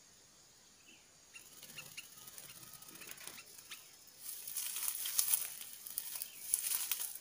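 A few short high chirps and clicks, then from about four seconds in a louder, dense crackling rustle as a small bird on a perch stick is handled by hand.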